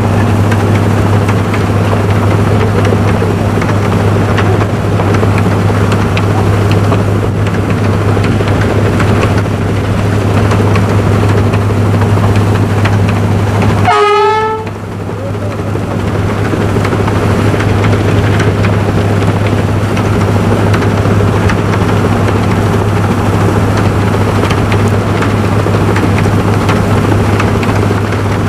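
Diesel locomotive pushing a snow plow through deep snow: a loud, steady rumble with a constant low drone and the rush of thrown snow. About halfway through the sound briefly dips and a short pitched toot sounds.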